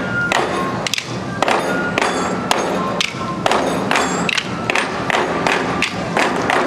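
Ensemble of Twenty-Four Festive Drums, large Chinese barrel drums, struck together with wooden sticks in a fast rhythm, several sharp strokes a second.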